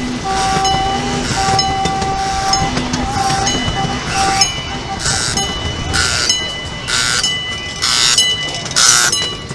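Miniature amusement-park train running on its track, with a held tone sounding on and off through the first half. From about halfway, a railroad crossing signal bell clangs about once a second, louder as the train nears it.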